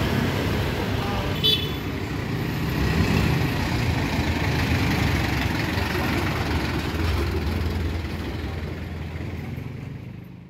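Street traffic: vehicle engines running with a steady low rumble, with people talking in the background. A brief click comes about one and a half seconds in, and the sound fades out near the end.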